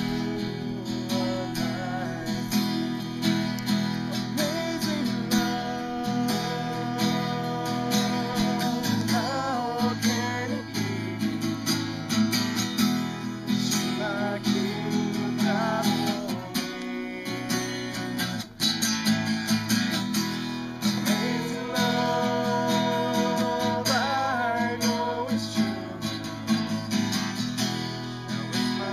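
An acoustic guitar strummed steadily through a song, with singing carrying a melody at times.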